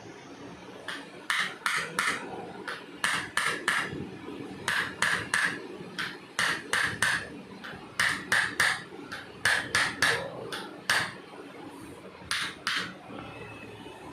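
Sharp percussive taps from a chiropractic treatment. They come in quick clusters of two to four, one cluster every second or so.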